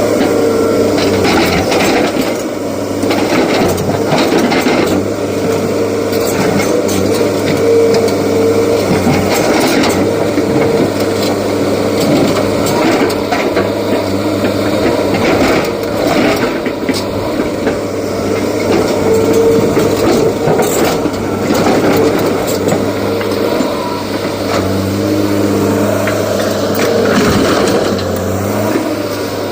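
Heavy diesel engine of an excavator running steadily under load, with frequent clanks and knocks scattered through.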